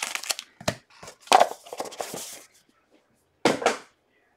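Cardboard trading-card box and its packs being handled: a run of short rustles and taps from the cardboard and wrappers, then a louder double knock about three and a half seconds in.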